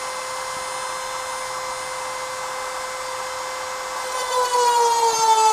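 Dremel rotary tool running with a steady high whine; about four seconds in it gets louder and its pitch sags as the bit is pressed into the knife's metal side to grind out a rock-pattern chunk, slowing the motor under load.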